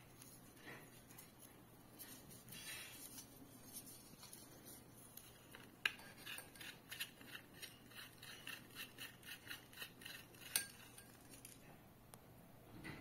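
Plastic parts of a ceiling light being fitted by hand: a white plastic standoff is twisted into a frosted acrylic frame. It gives faint rubbing and small ticks, a sharp click about halfway through, then a quick run of ticks at roughly three or four a second, and another sharp click near the end.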